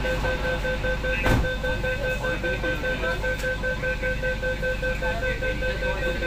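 Kolkata Metro East-West line train: a steady low rumble with an unchanging, pulsing electronic tone held at two pitches, and a single sharp click about a second in.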